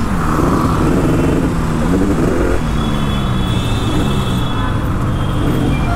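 Tuned Yamaha RD350's air-cooled 347 cc two-stroke parallel twin, running through an RD400 exhaust at low speed in traffic. The throttle is opened briefly about two seconds in and again near the end, with the revs falling away slowly in between.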